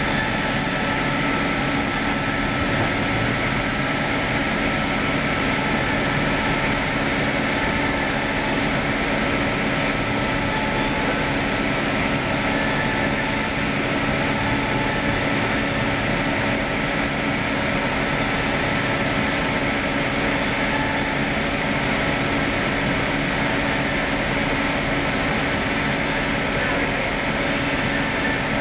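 Circular-saw log-sawing machine running steadily, its motor and spinning blade making a continuous drone with several held tones that stays even throughout.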